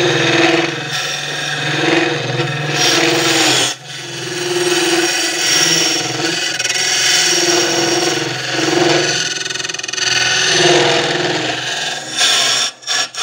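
Wood lathe spinning while a ring hollowing tool cuts into the end grain of a blank: a continuous scraping hiss of shavings coming off over the steady hum of the lathe. The cut breaks off briefly about four seconds in and stops near the end as the tool lifts out. These are the finishing passes, pulled so the cut follows the wood fibres.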